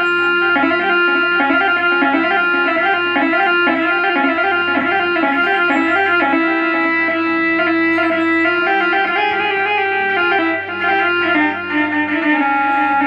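Korg Triton keyboard playing a sampled rababa (Arab spike fiddle) voice: a fast, ornamented ataba/mawwal-style melody over a steady low drone, stepping down in pitch near the end.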